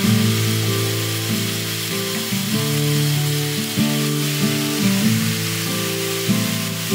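Sous vide-cooked ribeye steaks sizzling steadily in a hot nonstick frying pan, over plucked guitar music.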